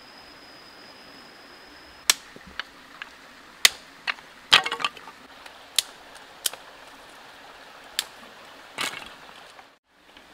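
Dry wooden sticks cracking and snapping as they are broken and handled: about a dozen sharp, irregular cracks, some in quick clusters, over the steady hiss of running stream water.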